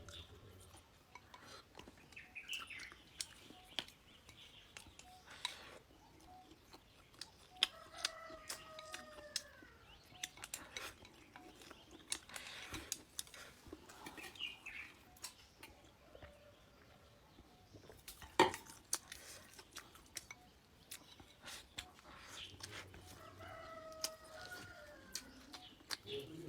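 A rooster crowing twice, about eight seconds in and again near the end, with a few short chirps between and many sharp clicks throughout, one louder click a little past the middle.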